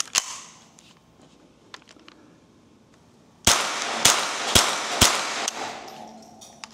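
Ruger 10/22 semi-automatic .22 LR rifle fired without a suppressor, using subsonic ammunition. Two sharp shots come right at the start, then a quick string of four shots about half a second apart from about three and a half seconds in, with echo trailing after them.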